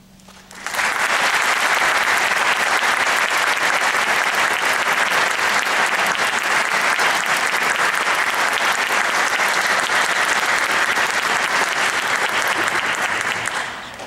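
Audience applauding in a concert hall as a piece ends: the clapping breaks out under a second in, holds steady and dense, and dies away near the end.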